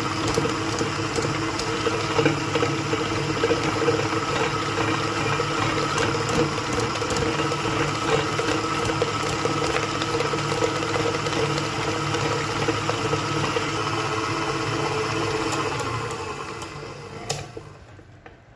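Electric stand mixer running steadily, its flat beater creaming butter and powdered sugar in a steel bowl to a light, fluffy cream. Near the end it is switched off and the hum fades away.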